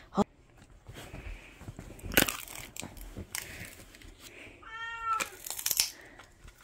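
A dog whining in protest: a brief falling whimper right at the start and one drawn-out high whine about five seconds in. In between come a few sharp clicks and crunches as a Samoyed takes and chews a dried fish-skin treat.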